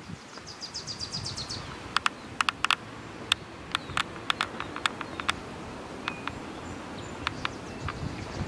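A small bird's rapid high trill of about ten notes in the first second and a half. It is followed by a scatter of sharp, irregular clicks and ticks over a steady low outdoor rumble.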